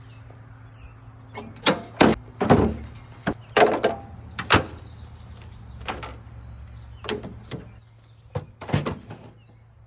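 A series of about a dozen heavy knocks and thuds at uneven intervals, the loudest between about one and a half and five seconds in, over a steady low engine hum.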